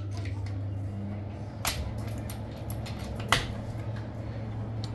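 Doors of a large egg incubator being pushed shut, with two sharp clicks about a second and a half apart over a steady low hum.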